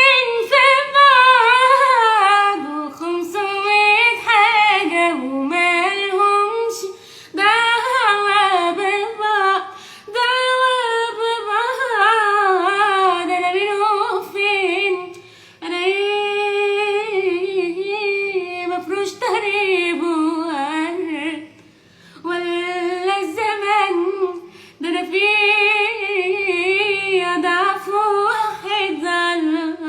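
A female voice singing an Egyptian Arabic song unaccompanied, with heavy vibrato and ornamented melismatic lines, in long phrases separated by short pauses for breath.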